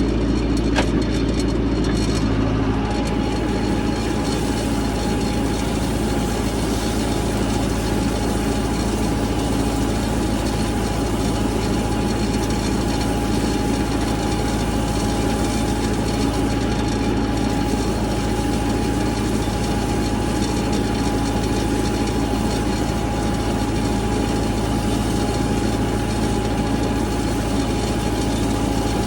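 Engine of the vehicle towing a Field Tuff seed drill, running steadily at a constant speed with an unchanging whine over its low hum.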